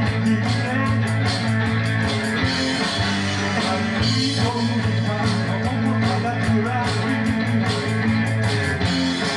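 Live rock-and-roll band playing: electric guitars and drums, with a singer.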